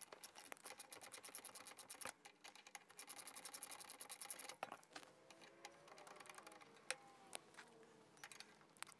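Faint rapid clicking and scraping of a metal tack puller working a plastic leg rest swing bushing out of a recliner's metal footrest mechanism. The clicking stops about four and a half seconds in, and a few scattered clicks follow.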